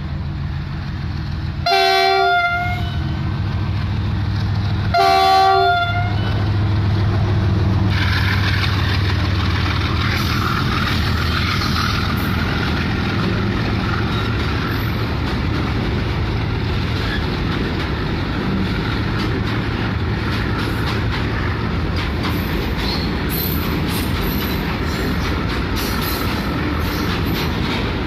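GE-built WDG4G diesel-electric locomotive, with a 16-cylinder GEVO engine, sounding its horn in two short blasts about three seconds apart over the steady running of its engine as it pulls away under load. From about eight seconds in, the BTPN oil tank wagons roll past with a steady rumble of wheels on rail.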